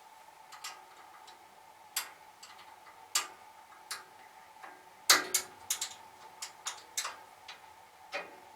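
Irregular sharp metal clicks and taps of tools and parts on a band saw's upper blade guide assembly as the thrust bearings behind the blade are loosened, the loudest cluster about five seconds in.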